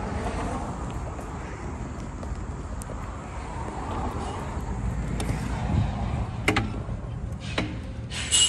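Steady rumble of a car on the road, with a few sharp clicks and a short high clink near the end.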